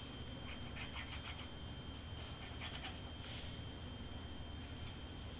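Faint, scattered light scratches of cardstock being handled and worked by hand, over a faint steady high whine.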